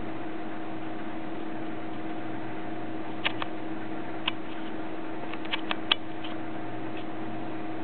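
Steady hum with hiss, two constant tones running through it, and a handful of sharp clicks between about three and six seconds in.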